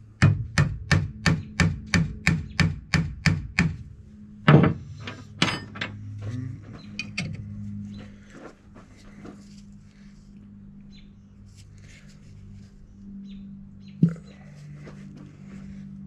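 Quick hammer taps, about fourteen in under four seconds, on a gear puller set on the drive gear of a Bendix Tru-Flo 550 air compressor, then one heavier blow: the press-fit gear is being worked loose. After that come faint clicks and scrapes of a wrench turning the puller's screw, with one more sharp knock near the end.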